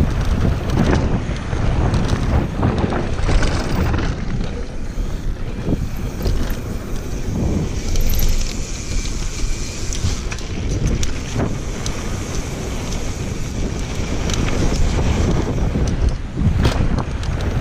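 Wind buffeting an action-camera microphone as a downhill mountain bike rolls fast over a dry dirt trail, with a steady rumble of tyres on loose gravel and scattered knocks and rattles as the bike hits bumps.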